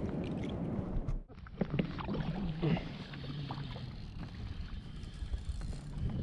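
Wind on the microphone and water washing around a plastic fishing kayak, with a brief drop-out about a second in followed by a few light clicks and knocks of gear being handled.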